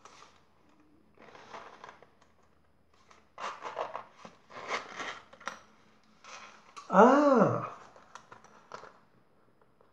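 Metal zip of a small leather case being pulled open in several short rasping runs, the longest and loudest about seven seconds in.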